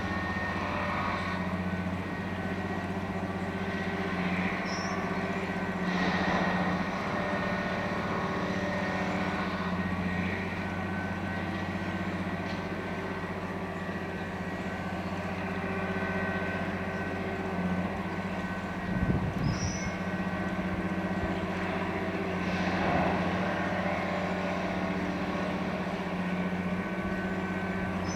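Diesel engine of a multiple tie tamper running steadily with an even hum. A few brief louder noises come through, about six seconds in, around twenty seconds and around twenty-three seconds.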